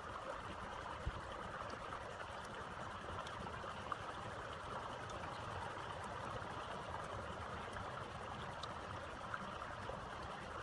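Steady rushing of a small shallow stream running over a rocky riffle, with a few faint clicks from thin bamboo strips being handled.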